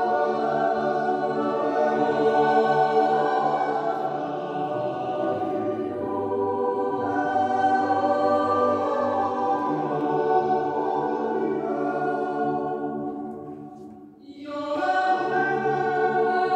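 Swiss yodel choir singing a cappella in long, held chords. About 13 s in the phrase fades out, and after a short breath the choir starts the next phrase together.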